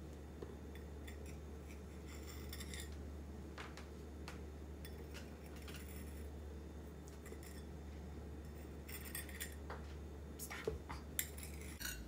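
A metal spoon scraping and clinking lightly against a ceramic mug, in scattered soft touches that come more often near the end, over a steady low hum.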